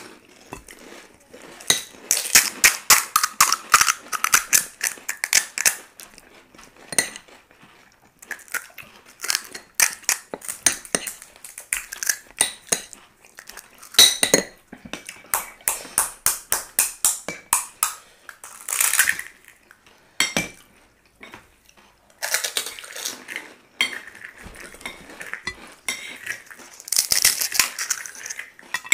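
Spoons clinking and scraping against plates and bowls while crisp pani puri (fuchka) shells are cracked and filled, in quick runs of light clicks broken by short pauses.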